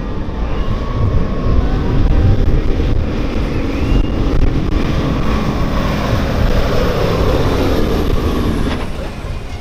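Semi truck's diesel engine running hard under load as it drags a weight-transfer sled down the pulling track, steady and loud, then easing off near the end.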